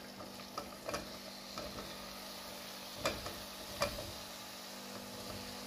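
Softened boiled carrot slices dropped by hand into a pan of hot butter and cardamom, sizzling softly, with a few light knocks of carrots and fingers against the plate and pan.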